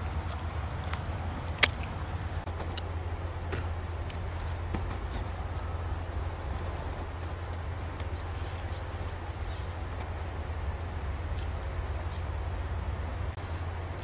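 Insects chirring steadily over a constant low hum, with a few faint clicks and one sharp click about a second and a half in.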